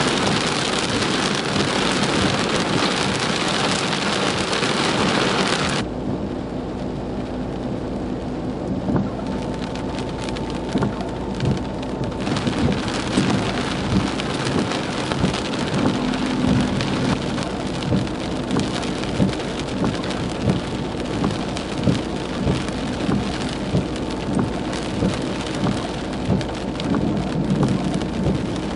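Heavy rain pelting a car's windshield and roof, heard from inside the car. It is a dense hiss that drops sharply about six seconds in, with the wipers beating about once a second through the second half.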